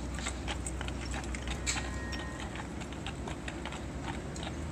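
Hooves of two draft horses driven in tandem, clip-clopping on pavement as they pull a buggy: quick, irregular hoofbeats, a few a second.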